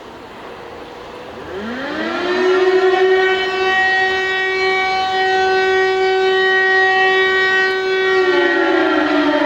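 Outdoor civil defence siren winding up about a second and a half in, then holding one steady tone for several seconds: the steady test signal of Finland's monthly siren test. Near the end its pitch starts to fall, and a second siren tone comes in under it. Before the siren starts there is a low hum of town traffic.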